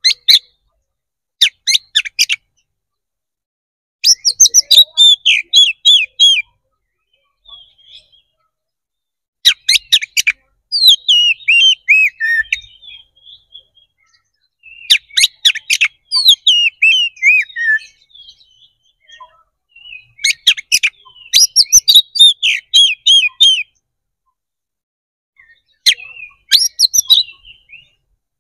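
Oriental magpie-robin (kacer) singing its loud, full fighting-mood song: about six bursts of rapid, sharp whistled and chattering notes, each one to three seconds long, with short pauses between.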